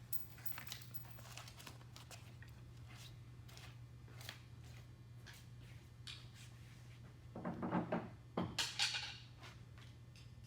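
Small clicks and rustles of hardware being handled while a screw-on carry handle is fitted to a plastic kayak, over a steady low hum. About seven and a half seconds in there is a brief, louder squeaky scrape, followed by a couple of hissing scrapes.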